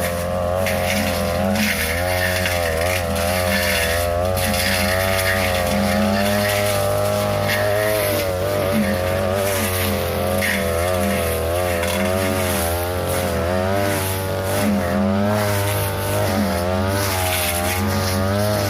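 42cc two-stroke brush cutter running at high speed, its engine pitch dipping and recovering again and again as the blade bites into tall grass and brush, with short swishing hits of the blade through the vegetation.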